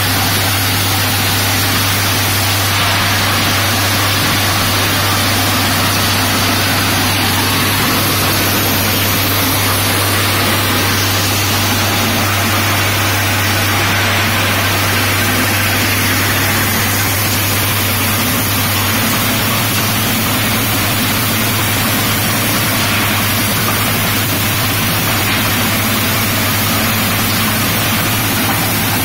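Supari (betel nut) cutting and processing machinery running: a steady, loud mechanical drone with a strong low hum and a constant rushing noise over it.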